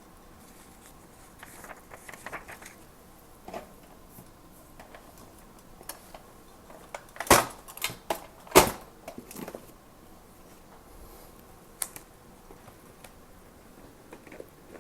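Small stationery items being handled and set down: scattered light clicks and rustling, with two sharp knocks of objects landing on a hard surface about a second apart a little past the middle.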